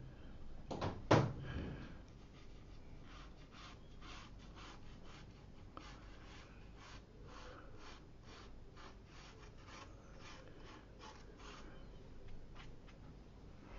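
Watercolour brush working over textured watercolour paper in a quick run of short strokes, about two or three a second. Two louder knocks about a second in come before the strokes.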